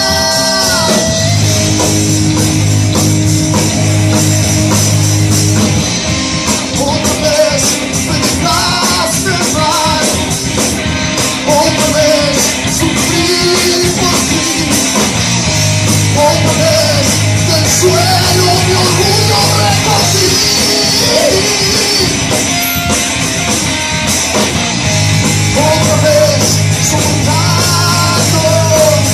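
Live rock band playing: electric guitar, bass guitar and drum kit, with a male lead singer.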